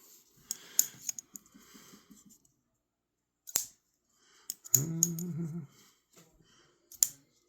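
Sharp metallic clicks of a Sencut Sachse button-lock folding knife being worked, the blade snapping open and shut several times with gaps of a second or more between snaps.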